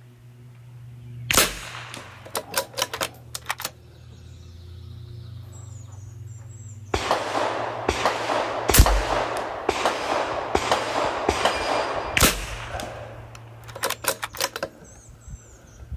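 Rifle shots from a bench rest, a .22 rimfire and a PCP air rifle taking turns at a group: a sharp shot about a second in, then two more in the second half, each followed by a quick run of clicks from the action being cycled. A stretch of rushing noise runs through the middle seconds.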